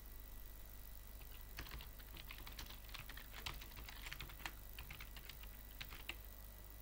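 Typing on a computer keyboard: a quick run of faint key clicks that starts about a second in and stops shortly before the end, over a low steady hum.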